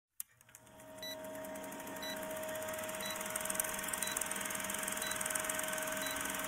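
A film-projector-style whirr fades in over the first second and then runs steadily: a steady hum under a fine rapid clatter, with a short tick about once a second.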